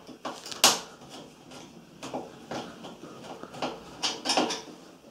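Screwdriver undoing the rear screws that hold a washing machine's inlet solenoid valve to the back panel: irregular clicks and short scrapes of the screwdriver on the screws, the sharpest click about half a second in.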